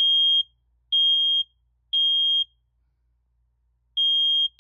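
Older First Alert smoke detector sounding its test alarm: three loud, high half-second beeps a second apart, a pause, then the three-beep cycle starting again near the end. It sounds only while the test button is held down, which the owner takes as a sign that it probably needs replacing.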